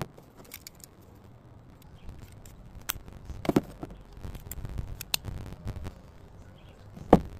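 Plastic sunglasses frame being handled, giving several sharp clicks and snaps spread through, the loudest near the end, over a low rumble in the middle.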